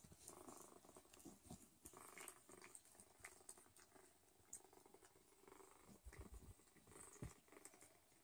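Faint purring from Don Sphynx cats while the kittens nurse, with soft scattered clicks and rustles.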